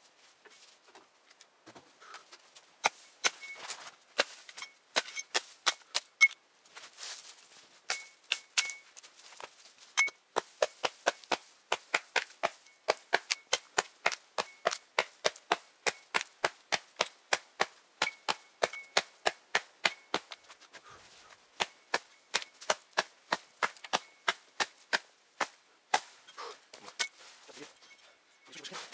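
Footsteps crunching in fresh, frozen snow at a steady brisk walking pace, each step a sharp crack, some with a short high squeak.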